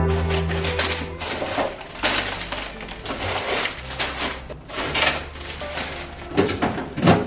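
Plastic produce bags rustling and containers clinking and knocking as food is taken out of an open refrigerator, with a couple of louder knocks near the end.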